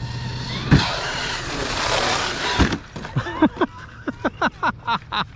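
Electric 8S RC monster truck speeding up and launching off a jump: a sharp knock about a second in, a couple of seconds of loud motor and tyre noise, then a thump as it lands. After that, a quick run of short yelps, about four or five a second, from a dog barking.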